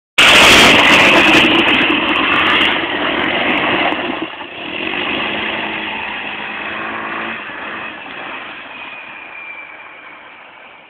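ATV engine running hard under throttle, loud at first and then fading steadily, with a brief dip in level about four seconds in.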